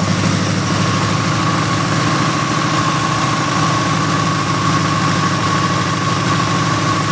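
1970 Ford Mustang Mach 1's V8 engine idling steadily, with a thin steady high whine running alongside.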